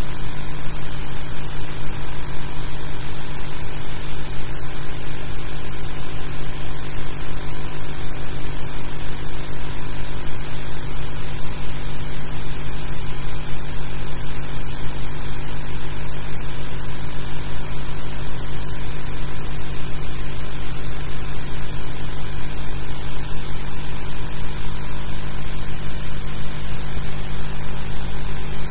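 Steady hiss with a constant low hum and no other events. This is the noise floor of an old film soundtrack transfer with no recorded sound on it.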